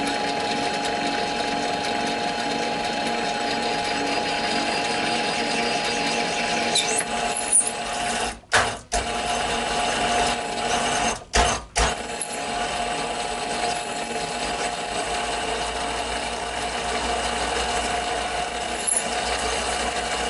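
Mini metal lathe running with a steady motor whine while an MT1 Morse taper reamer in a tailstock drill chuck cuts a tapered bore in a spinning test piece. The sound cuts out briefly twice near the middle, under the reamer's friction on a lathe whose electronics are quick to shut it down.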